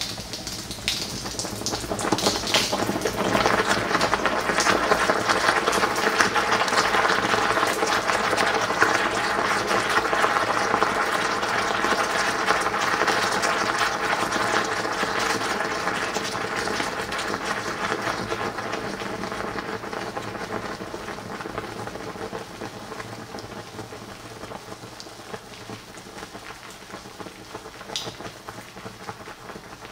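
Motor oil sizzling and crackling around a red-hot metal ball sunk in a glass, a dense patter of fine pops that builds over the first few seconds and then slowly dies down.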